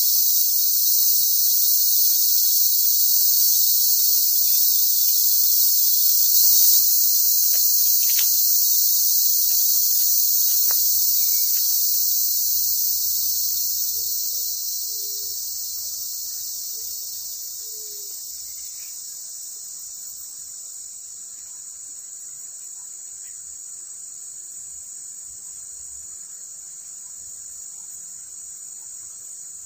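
Dense chorus of forest insects, a steady high-pitched shrill. It is loud at first, then fades over several seconds about halfway through to a quieter steady level, with a few faint knocks.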